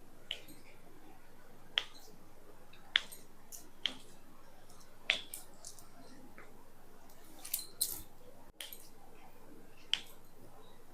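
Sharp joint cracks during a chiropractic adjustment: about eight single pops at irregular intervals of one to two seconds.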